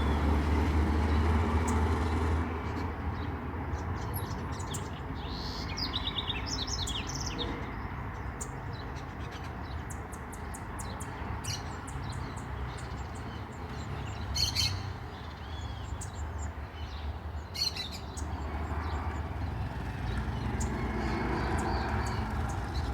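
Small birds chirping in short high calls, a cluster a few seconds in and a couple of single calls later, over a steady low outdoor rumble.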